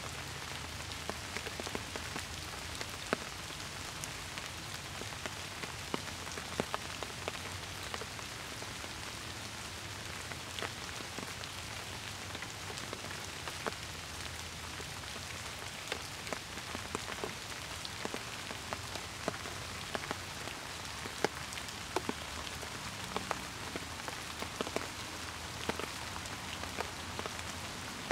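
Steady rain falling: an even hiss with many sharp, close drops ticking irregularly through it.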